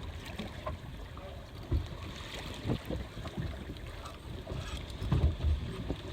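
Wind buffeting the microphone on an open fishing boat, a steady low rumble broken by a few short low thumps.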